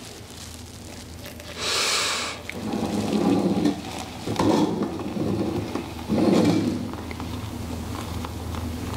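Boiling water poured from an electric kettle into a glass French press of ground coffee. There is a brief hiss about two seconds in, then uneven splashing surges of the pour.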